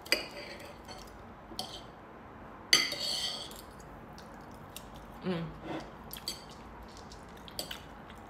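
Metal cutlery clinking and scraping on a dinner plate during a meal, with one sharp ringing clink about three seconds in.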